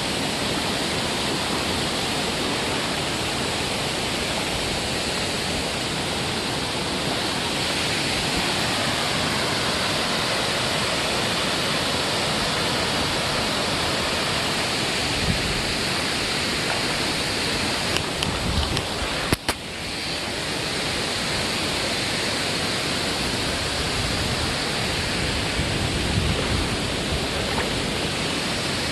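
Waterfall rushing in a steady roar of falling water. A brief knock and a momentary drop in level come about two-thirds of the way through.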